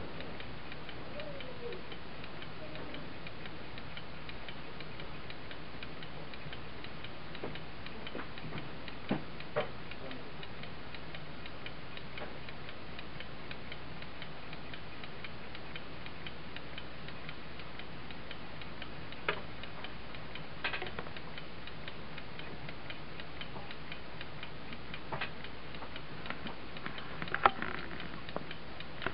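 Uncased Seth Thomas clock movement running, its balance-wheel escapement ticking steadily. A few sharper clicks stand out here and there, the loudest near the end.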